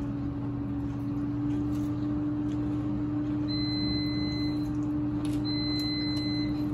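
A steady low electrical hum, with a high-pitched electronic beep starting about halfway in that sounds for about a second at a time, roughly every two seconds.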